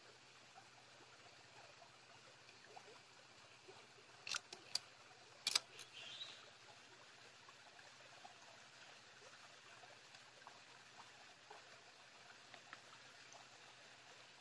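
Faint steady trickle of a shallow stream, with a few sharp clicks near the middle from hands handling the string and bamboo pole while trussing a chicken.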